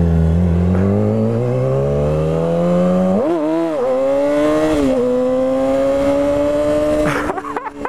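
Yamaha YZF-R6 sportbike's inline-four engine pulling away under acceleration, its pitch rising steadily for about three seconds. It changes gear in two quick dips of pitch, then runs steadily at cruising speed.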